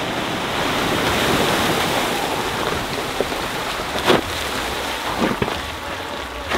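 Water splashing and rushing as a Ford F-150 Lightning electric pickup fords a shallow creek, with no engine sound. Then a few short, sharp knocks as its tyres climb over rocks.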